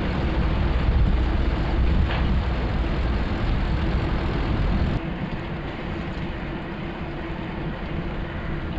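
Wind rumbling on the microphone of a trike-mounted camera, over the steady tyre and road noise of a recumbent trike rolling along a paved cycle path. The rumble drops to a quieter level about five seconds in.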